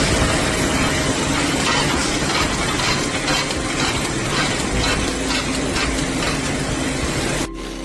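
Loud mechanical noise of a machine running, with a fast clatter running through it; it cuts off abruptly near the end.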